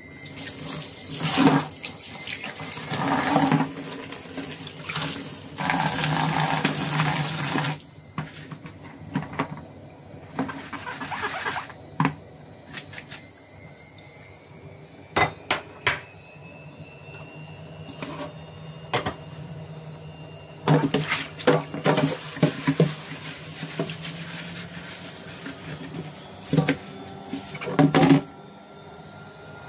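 Kitchen tap running in stretches into a stainless sink as shrimp shells and heads are rinsed in a steel mesh strainer, with sharp knocks and clatter of utensils against the sink in between.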